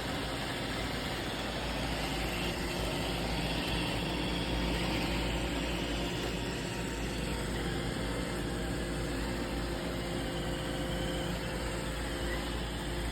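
Roomba robot vacuum running: a steady whir of its motor and brushes, swelling slightly midway.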